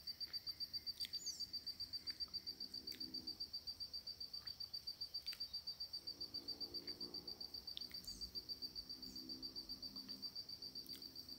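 An insect chirping in a steady, fast, even pulse at one high pitch, several pulses a second, with a few short downward-sweeping bird calls here and there.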